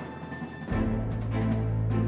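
Background music with a steady beat; a deep, sustained bass note comes in less than a second in and the music grows louder.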